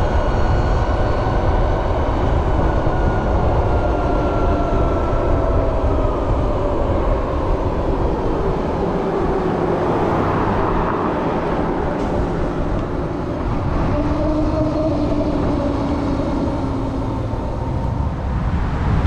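LiveWire One electric motorcycle on the move: wind rushing over the mounted microphone, with the electric drive's thin whine sliding down in pitch as the bike slows over the first several seconds, and a lower whine returning later on.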